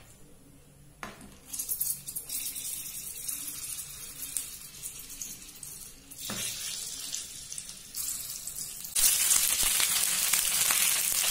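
Besan-stuffed green chillies frying in hot oil in a pan, the oil sizzling. The sizzle comes in about a second in, jumps in level a few times, and is loudest near the end.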